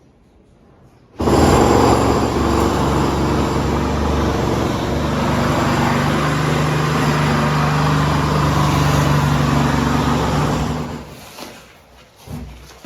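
Loud, steady mechanical running noise with a low hum. It starts abruptly about a second in and fades out near the end.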